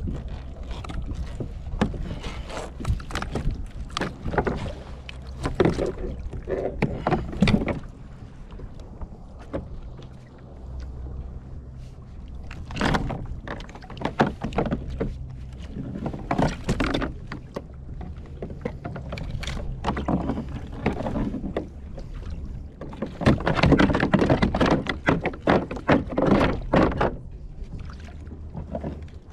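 Water splashing and slapping against a kayak's hull as it moves, in irregular bursts that come thickest in the second half, over a steady low rumble.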